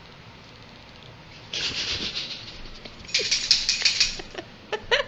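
Water splashed and poured onto a dog's fur in two bursts of splattering, the second louder, then a few short sharp clicks near the end.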